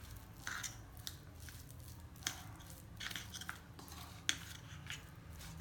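Spoon mixing a thick batter of boiled noodles, chopped vegetables and gram flour in a bowl: soft scrapes with a handful of light clinks against the bowl.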